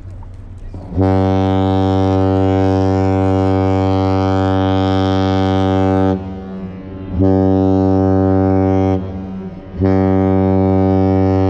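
Deep ship's horn sounding three steady blasts: one long blast of about five seconds starting about a second in, then two shorter blasts of under two seconds each with brief gaps between.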